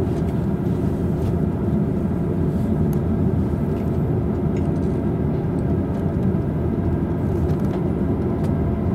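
Steady running rumble inside the upper deck of a JR East Tokaido Line double-decker Green car as the train pulls out along a station platform, with a few faint clicks.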